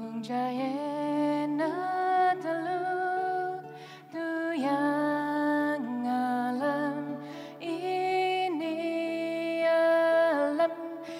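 A woman singing a slow melody in long held notes that slide from pitch to pitch, over a plucked sape', the Borneo boat lute, which keeps a steady low drone beneath the voice. The singing pauses briefly about four seconds in.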